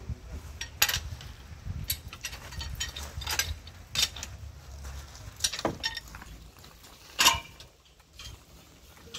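Irregular metallic clinks and knocks from the steel rod and cross-bar handle of a hand-worked soil-sounding rig, with one louder knock near the end.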